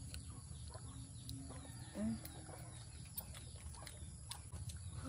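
Quiet outdoor background with a steady low rumble, scattered small clicks of people eating seafood with their hands, and one short animal call about two seconds in.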